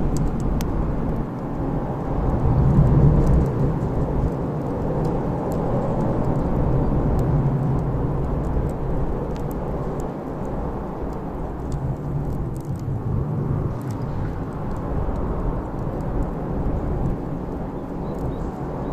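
Bonfire burning, with scattered sharp crackles and pops over a steady low rumble.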